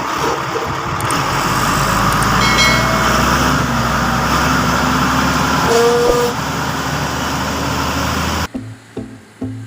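Diesel engine of heavy road-building machinery running steadily with a low hum as it works a subbase. About eight and a half seconds in it cuts off abruptly and music with a plucked, rhythmic beat takes over.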